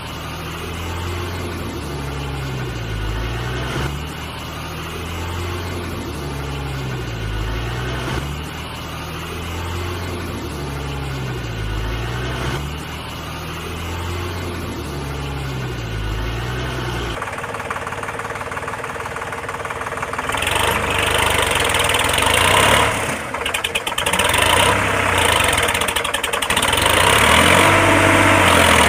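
Looped recording of an engine running, its pattern repeating about every four seconds; about 17 seconds in it switches abruptly to a different, louder and rougher engine sound that grows louder near the end.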